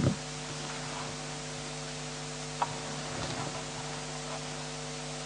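Steady electrical hum and hiss, with a couple of knocks right at the start and a single sharp click about two and a half seconds in.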